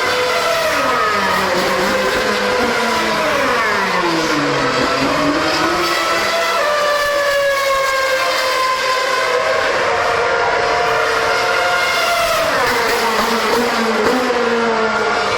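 2013 Formula One cars' 2.4-litre V8 engines revving hard, more than one car at a time. The pitch falls and climbs again as they brake, accelerate and pass.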